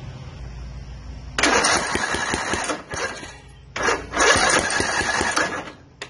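Riding lawn mower engine cranked twice on its electric starter, each attempt lasting about a second and a half and stopping abruptly without the engine catching: a no-start with compression, spark and fuel present, which the owner puts down to the valves.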